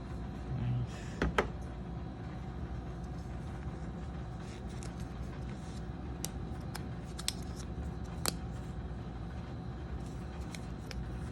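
Handling noise while unboxing AirPods Pro: a few sharp clicks and light taps, a cluster about a second in and more around six to eight seconds in, over a steady low hum.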